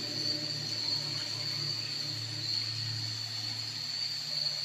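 A steady low hum and a steady high-pitched whine over a faint hiss, with no distinct events.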